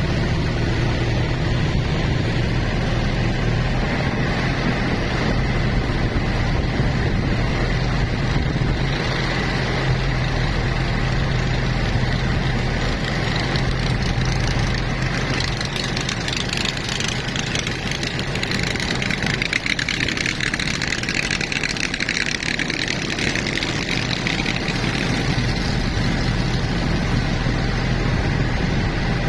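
Engine of a motorboat running steadily while under way, with a low hum under a wash of hiss that swells for several seconds in the middle.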